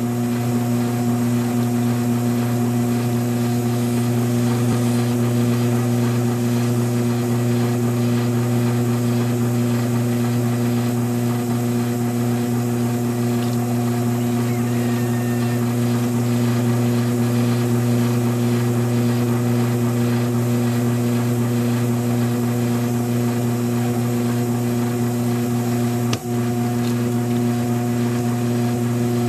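Electric potter's wheel motor running at a steady speed, a constant hum, with one brief click near the end.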